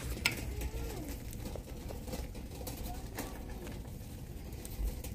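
Store background sound: a steady low hum with faint, distant voices and a few light clicks and taps.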